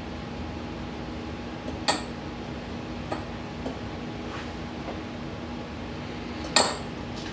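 Metal spoon clinking against a glass jar and a plate while chili sauce is spooned onto a hot dog: a few light taps and two sharper clinks, one about two seconds in and the loudest near the end, over a steady low hum.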